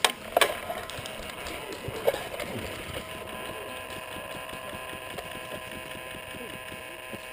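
A few sharp cracks of airsoft gunfire: two close together right at the start and a weaker one about two seconds in. After that comes a steady background hiss with faint scattered ticks.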